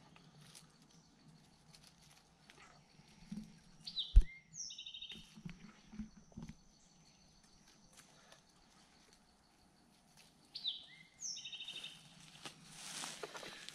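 A songbird sings the same short phrase twice, about six seconds apart: quick falling whistles followed by a buzzy trill. A single dull thump comes about four seconds in, and rustling of leaves and brush builds near the end.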